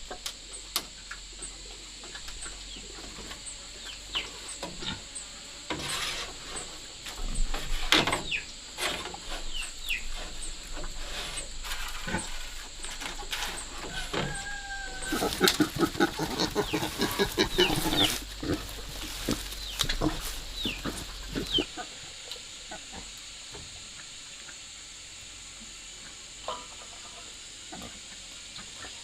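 Chickens clucking and peeping in short high calls, busiest in the middle, over a steady high whine that stops about two-thirds of the way in.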